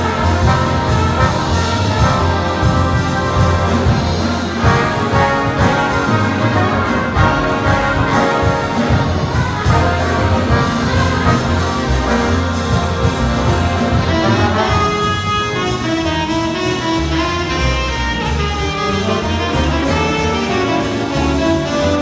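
A big band playing a jazz piece live: saxophones, trumpets and trombones over piano and double bass in a full ensemble passage, which thins out to a lighter, sparser passage about two-thirds of the way through.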